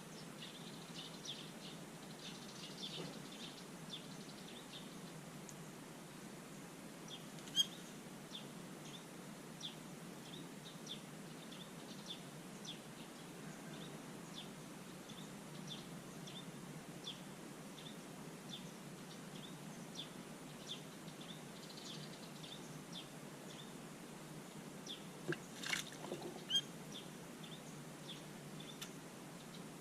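A bird chirping repeatedly, short high chirps about twice a second, over a faint steady background hum. A single sharp click comes about a quarter of the way in, and a cluster of louder, sharper sounds comes near the end.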